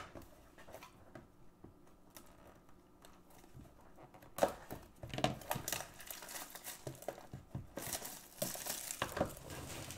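Plastic shrink wrap being torn and crinkled off a sealed cardboard card box. The first few seconds are almost silent, then a run of quick, irregular crackles starts about four seconds in.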